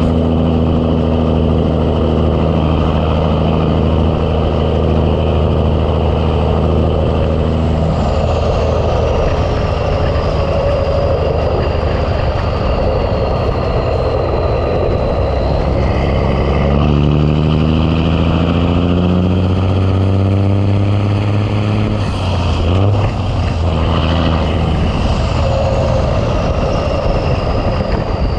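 Big Cam Cummins inline-six diesel in a Ford LT9000 truck, working under load. It holds a steady note, then changes about eight seconds in, and from about sixteen seconds its pitch climbs through a gear before breaking off near twenty-two seconds. A thin high whistle falls in pitch twice.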